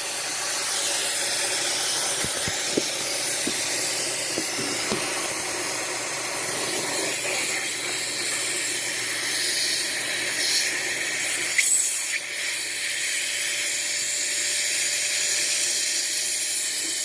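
Vacuum cleaner running, its suction drawing air through a length of plastic hose fitted into the vacuum's end, which steadily hisses as it sucks dust from under a refrigerator's coils. A few light clicks come about two to five seconds in and again around twelve seconds.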